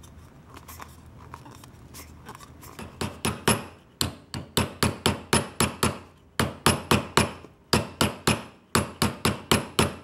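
A small hammer tapping the folded rim of a cut-open drink can against a rounded wooden block, flattening the fold into a double-folded edge. Quiet handling for about three seconds, then a quick run of sharp taps at about four a second, broken by a few short pauses.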